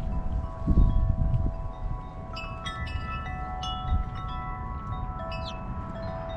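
Wind chime ringing: several long, overlapping tones, struck more often from about two seconds in, with a low rumble about a second in.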